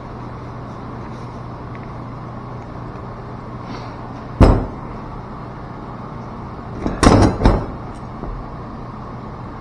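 One sharp knock about four seconds in, then a quick cluster of three or four knocks around seven seconds, from handling tools and valve parts during a mixing valve rebuild, over a steady low hum.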